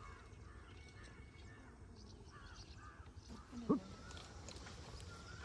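Birds calling over low background noise: a quick run of repeated calls, a few each second, that dies away about halfway through. Then comes one brief louder call, and a couple of short whistled notes near the end.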